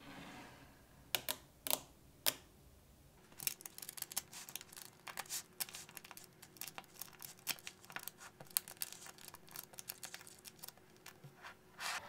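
Small magnetic balls clicking as they snap together and are pressed into shape by hand: three sharp clicks, then about eight seconds of rapid, irregular clicking and rattling.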